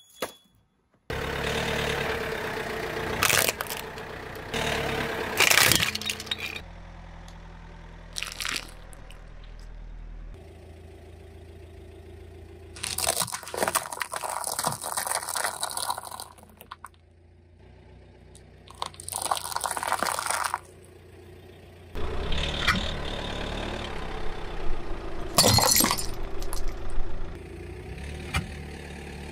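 A car tyre rolling slowly over and crushing a run of objects in turn, with several separate bouts of crunching and cracking and sharp snaps, the loudest near the end. Among them are long balloons and paper cups packed with dry pasta flattened under the tread, with a steady low hum in the quieter gaps between.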